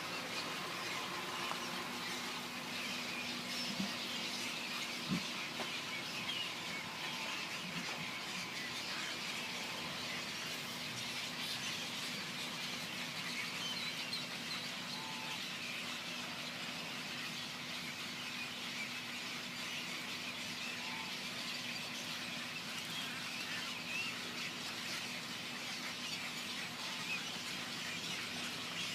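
A large flock of birds calling continuously: many overlapping chirps and squeals that merge into a steady chatter, with a few lower calls standing out now and then. A steady low hum runs beneath.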